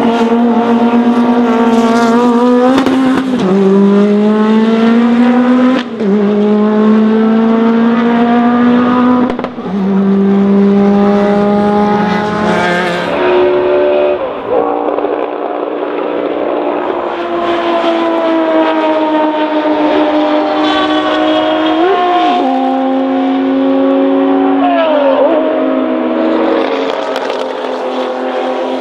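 Historic race car engines at full throttle. The note climbs and drops sharply at each upshift, about four gear changes in the first half; later it falls slowly as the throttle is lifted, with two quick rev blips on downshifts.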